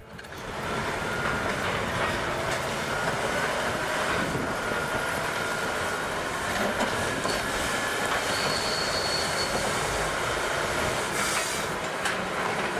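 Crawler bulldozer running, its steel tracks clanking with a thin metallic squeal over a steady mechanical noise.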